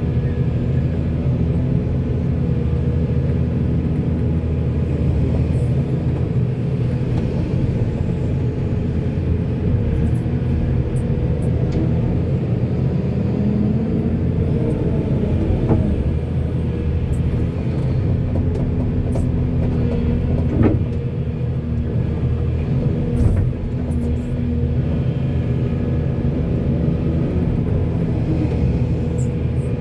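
Diesel engine of a backhoe running steadily under work, with a few sharp knocks from the machine, three in all from about halfway through.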